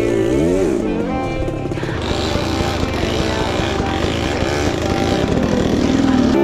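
Dirt bike engine revving up and down in the first second as it is ridden off-road, then running on rougher and a little louder toward the end, with background music over it.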